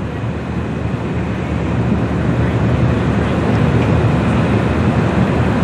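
Steady low rumble of the bulk freighter Lee A. Tregurtha's engines as it passes, growing gradually louder.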